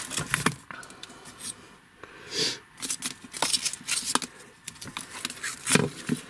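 Handling noise from firework dummies and their cardboard and plastic packaging being picked up and moved: a scatter of small clicks, taps and rustles, with a short rustling hiss about two and a half seconds in.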